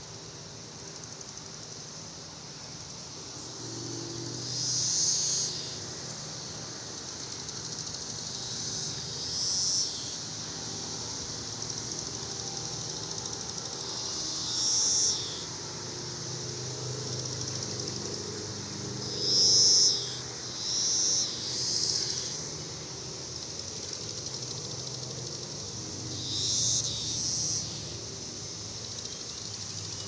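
Periodical cicadas buzzing in a steady high chorus, with about eight louder buzzes of a second or so from cicadas close by.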